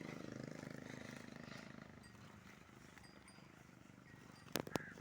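Low, drawn-out lowing of a water buffalo that fades over the first two seconds, followed by two sharp clicks near the end.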